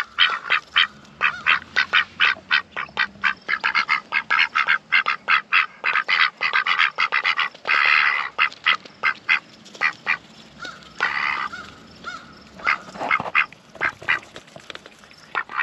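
Two Pekin ducks feeding from a bowl of greens, their bills clicking and snapping in quick runs of about five strokes a second, with a couple of longer quacks about eight and eleven seconds in.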